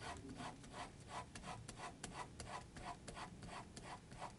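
Zebra Drafix mechanical pencil's 0.5 mm Pentel Super Hipolymer HB lead scratching across paper in quick back-and-forth strokes, about five a second, drawing lines.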